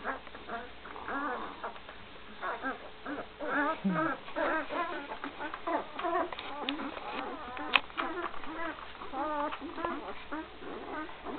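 Week-old Great Dane puppies squeaking and whining while they nurse: many short, wavering cries overlapping throughout. A sharp click comes a little past the middle.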